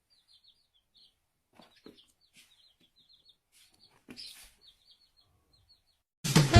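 Faint, quick, high-pitched chirping of small birds, with a few soft knocks about two and four seconds in. Loud music starts just before the end.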